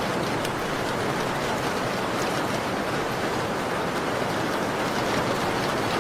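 Steady falling rain, an even hiss, with faint scattered crackles from a wood fire.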